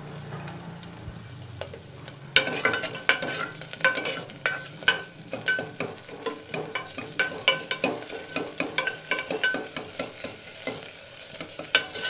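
Chopped onion dropped into hot oil in an aluminium pot: a sudden loud sizzle about two seconds in, after a low steady hum. The onion then fries as a spoon stirs it, clicking and scraping against the pot many times.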